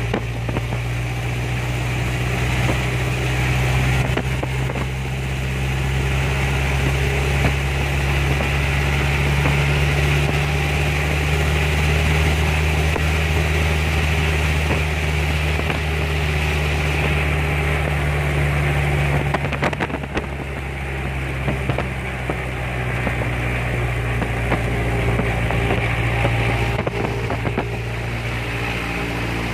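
Cessna 172's piston engine and propeller running steadily during a pre-flight engine run-up, heard from inside the cockpit. The level dips slightly about two-thirds of the way through.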